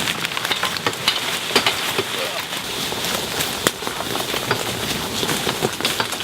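Dense crackling and rustling of twigs, brush and dry leaves, with many small sharp snaps, as the felled oak is dragged and trampled through the woodland undergrowth.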